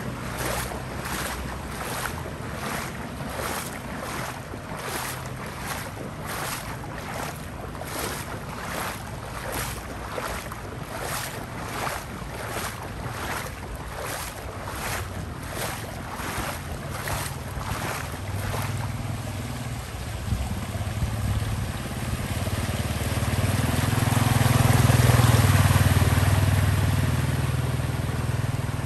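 Footsteps wading through street floodwater, splashing at walking pace, about three steps every two seconds; they stop after about eighteen seconds. A motorcycle then rides by through the flood, its engine hum and the hiss of water off its tyres swelling to the loudest point near the end and then easing off.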